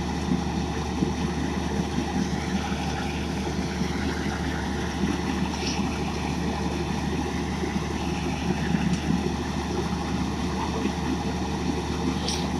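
The engine-driven generator of a truck-mounted rail welding machine running steadily with a constant hum, the weld just completed.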